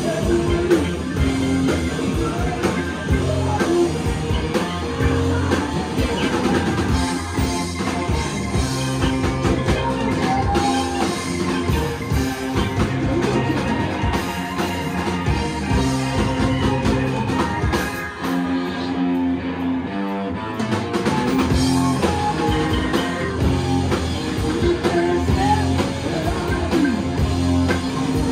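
A live rock and roll band playing loud: electric guitar, drum kit and saxophones, with a singer. The cymbals and highest sounds drop out briefly about two-thirds of the way in, then the full band comes back.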